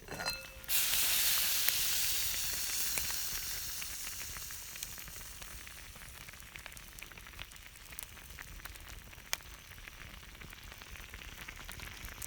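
A brief clink, then a sudden loud sizzle as ingredients go into a hot iron skillet, slowly dying down over several seconds. Scattered crackles from the wood fire run underneath.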